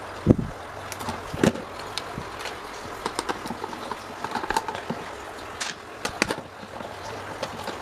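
Irregular knocks, clicks and taps of tools and metal parts being handled while an old electric fan is taken apart and worked on. A heavy thump comes near the start and another about a second and a half in, with lighter clicks scattered through the rest.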